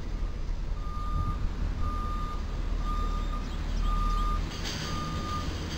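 A truck's reversing alarm beeping steadily, about one beep a second, over a low engine rumble, with a brief hiss about three-quarters of the way through.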